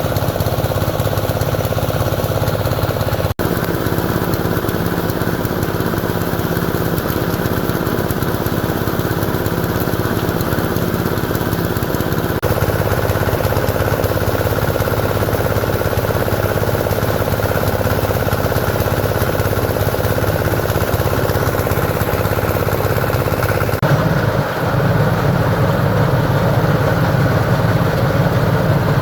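An engine running steadily at a constant speed, with a strong low hum. The sound shifts abruptly a few times, about 3, 12 and 24 seconds in.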